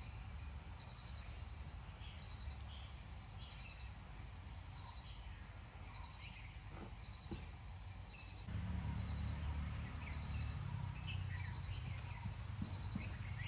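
Insects trilling steadily in the waterside vegetation, with a few scattered bird chirps. A low rumble underneath grows louder about eight and a half seconds in.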